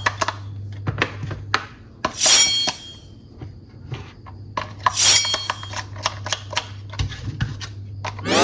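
Small hard toy pieces clattering and clinking as they are handled, with two louder rattling bursts and many separate clicks, over a steady low electrical hum.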